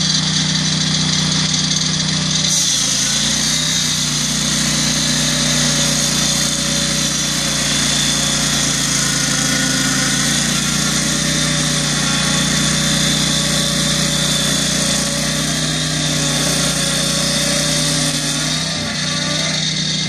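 Lucas Mill portable sawmill running, its petrol engine driving the circular blade through a log lengthwise. A higher cutting hiss joins the steady engine note about two and a half seconds in and drops away near the end as the blade leaves the wood.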